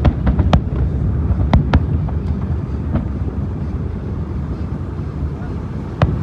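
Aerial fireworks shells bursting in sharp separate bangs: several in the first two seconds, one about three seconds in, and a strong one just before the end, over a steady low rumble.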